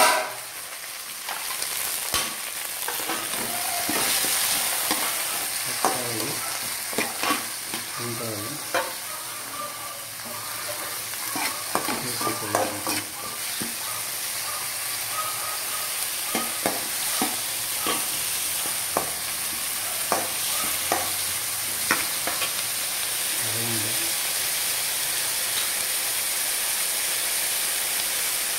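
Shallots, tomatoes and curry leaves sizzling in hot oil in a steel pan, with a steady hiss, while a slotted steel spatula stirs them, scraping and clicking against the pan at irregular moments.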